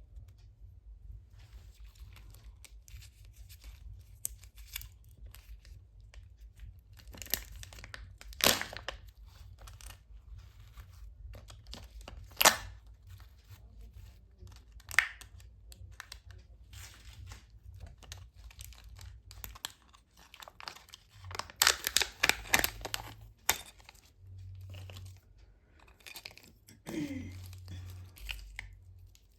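Foil and plastic wrapping of a Kinder Joy egg being torn and crinkled by hand, in scattered sharp crackles that come thickest near the end.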